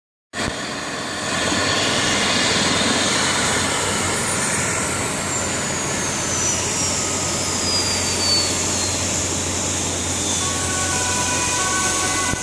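Eurocopter EC135 air ambulance helicopter running on the ground: a steady rushing engine noise, with a high whine that slowly falls in pitch from about four seconds in.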